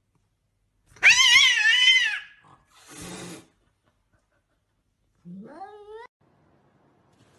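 A domestic cat gives a loud, wavering yowl lasting about a second, followed by a short, noisy rasp. Near the end comes a softer cat call that rises in pitch.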